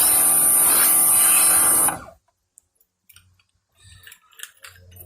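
Sun Joe 40-volt cordless pressure washer running, a steady spray hiss over the motor's hum, which cuts off suddenly about two seconds in. Faint clicks and light knocks follow.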